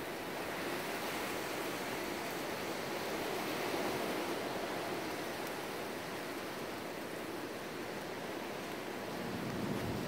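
Strong, gusty wind rushing in a steady noise that swells slightly about four seconds in and again near the end.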